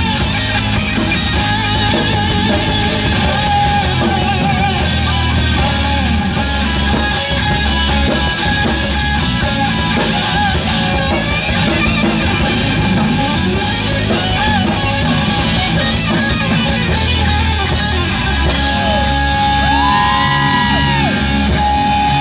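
Heavy-metal electric guitar solo on a Dean V-shaped guitar, fast lead lines played loud, with long held, bent notes near the end.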